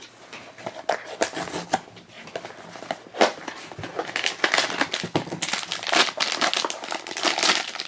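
Small cardboard blind box being opened by hand with scattered clicks and rustles, then the figure's silver foil wrapper crinkling as it is handled, the crinkling growing busy about halfway through.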